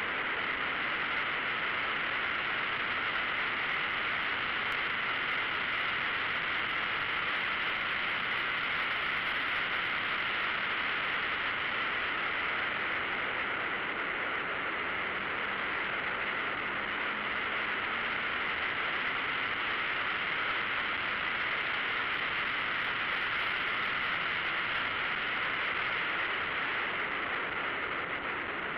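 Steady wind rush over a camera mounted on the outside of a car at about 60–70 mph on track, with the engine's note faint beneath it, drifting up and down a little in pitch.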